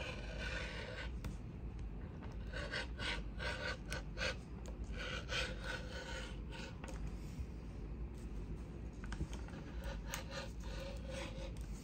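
Rotary cutter blade rolling through folded four-way-stretch swim fabric onto a cutting mat, in a run of short, irregular cutting strokes.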